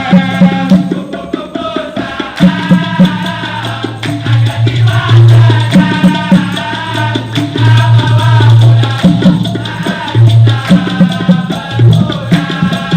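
Dikir barat music: a male chorus singing together over hand percussion and maracas, with a steady beat.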